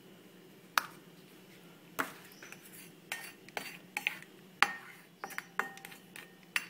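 A white plastic spoon tapping and scraping on a plate while serving rice: irregular sharp clinks, a few at first and then in quicker succession in the second half, the loudest a little past the middle.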